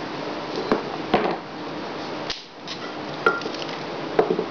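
Several sharp clicks and light knocks of small tools and parts being handled and set down on a hard work surface, over a steady hiss.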